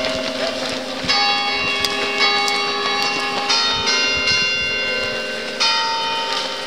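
Church bells ringing in a peal, fresh strikes coming in about a second in and several more times after, each note ringing on over the next.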